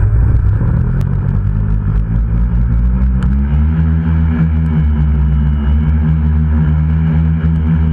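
The brushless motors and propellers of a DIY tricopter drone, heard through the camera on board, buzzing loudly in flight. The pitch climbs slightly about three seconds in and then holds steady.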